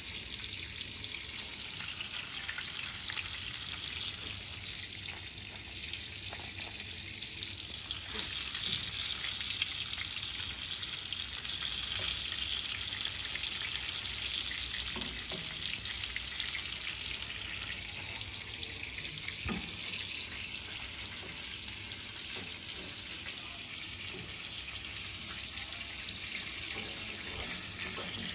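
Oil sizzling steadily in a frying pan as panko-crumbed and battered dolphin fish pieces fry. Now and then a faint click of metal tongs against the pan.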